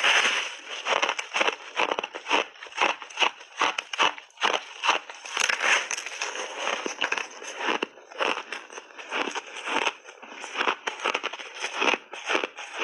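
Close-up chewing of refrozen ice in big bites: a dense, irregular run of crunches.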